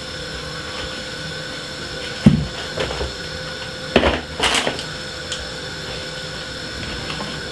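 Kitchen handling sounds over a steady background hum: a dull knock on the worktop about two seconds in, a sharper knock about four seconds in followed by a brief rustle as a hand reaches into a glass bowl of marinated salmon.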